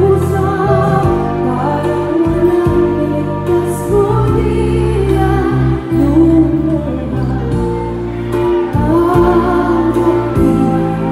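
Live concert ballad: a woman singing into a microphone over a band's accompaniment of sustained low notes, with the audience singing along.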